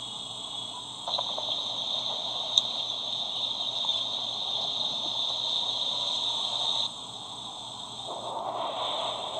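Steady outdoor background noise from the explosion news footage, a high hiss with a buzzing edge and no boom. It jumps louder about a second in, with one sharp click soon after, and drops abruptly near seven seconds.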